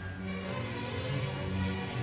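High school string orchestra playing, with held bowed notes over a strong low part.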